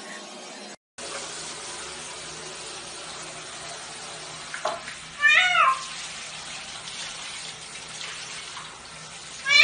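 A shower head runs water steadily into a tub of water. A cat meows loudly once about halfway through, with a shorter call just before and another meow right at the end.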